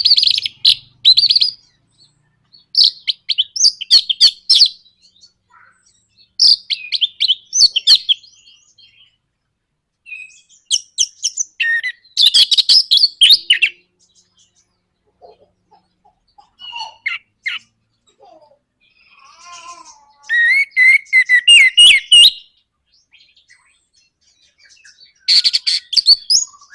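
Orange-headed thrush singing its rapid 'nraktak' chatter in loud, high bursts of quick notes lasting one to three seconds, with short pauses between them, about seven bursts in all.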